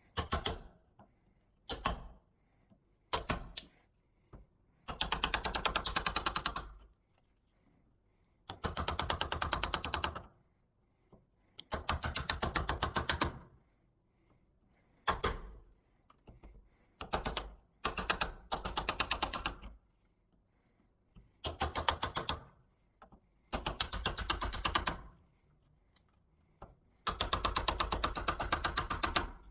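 Cordless power driver running screws into a door lockset: about a dozen short bursts of rapid, even clicking, some under a second and some about two seconds long, with short pauses between.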